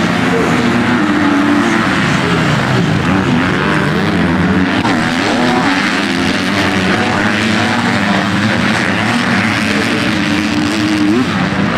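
Several motocross bikes racing, their engines revving up and down, overlapping with one another.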